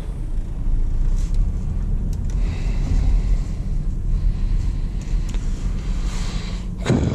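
Cabin noise of a BMW 316i E36 compact on the move: its four-cylinder engine and the tyres make a steady low rumble heard from inside the car.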